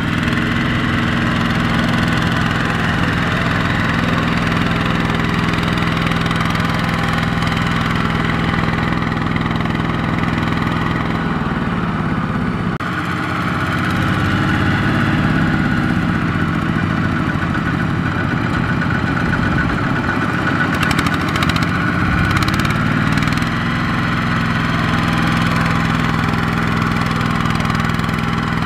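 Kubota RT120 walking tractor's single-cylinder diesel engine running under load, pulling a loaded rice trailer through deep mud. Its steady note drops and turns rougher about halfway through, then climbs back up a few seconds before the end.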